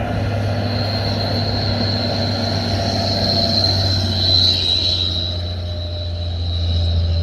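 Mitsubishi Fuso FN627 6x4 truck driving past: a steady engine drone and tyre noise, with a high, steady whistle, typical of the turbo, that is loudest as the truck passes about four seconds in and dips slightly in pitch as it pulls away.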